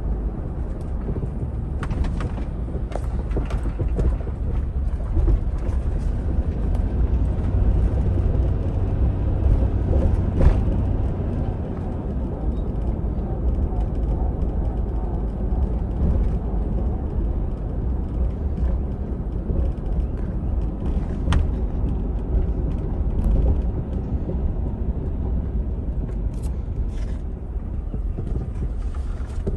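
Suburban heard from inside the cabin, rolling slowly with a steady low engine and road rumble. A few short clicks and knocks sound scattered through it.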